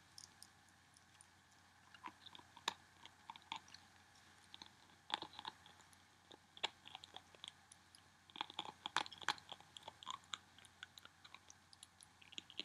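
A ferret eating vitamin supplement from the nozzle of a squeeze tube: small irregular wet clicks and mouth smacks of chewing and licking. They come in bursts, busiest about two seconds in, around the middle, and again about two-thirds through.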